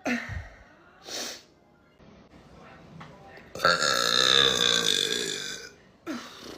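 A woman burping: one long, loud burp of about two seconds, its pitch wavering, with short burps before it and one near the end.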